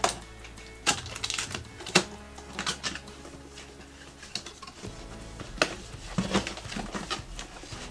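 Cardboard box and packaging being opened and handled: irregular sharp rustles, scrapes and taps as the lid is lifted and an inner cardboard insert is slid out, over quiet background music.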